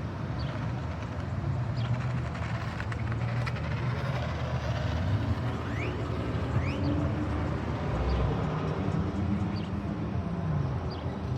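Steady outdoor traffic rumble of car engines and tyres, with one vehicle's engine note rising and falling near the end. A few short bird chirps come through.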